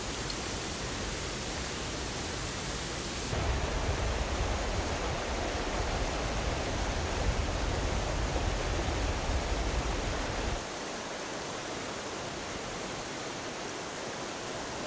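Steady rush of a fast, rocky mountain stream. It gets louder and deeper about three seconds in, then thins out again about ten and a half seconds in.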